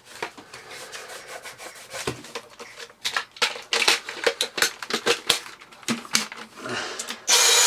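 Cloth rubbing and wiping over the Dyson bin's plastic and rubber seal, with scattered short clicks and knocks. Near the end the Dyson V6 cordless vacuum's motor switches on suddenly and runs loudly and steadily.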